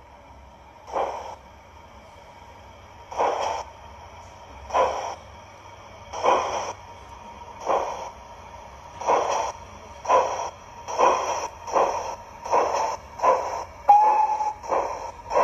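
Steam exhaust chuffs of a GWR 45XX Prairie tank engine, played by a Zimo MX644C sound decoder through the model's factory-fitted speaker as the O gauge locomotive pulls away from a stand. The beats start about two seconds apart and quicken steadily to under a second apart as it gathers speed, over a faint steady hiss, with a brief steady tone about two-thirds of the way through.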